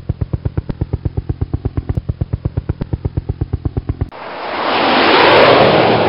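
Sound effects: a rapid, even train of low thumps, about nine a second, that stops suddenly about four seconds in. It is followed by a rush of noise that swells and then fades, like something passing by at speed.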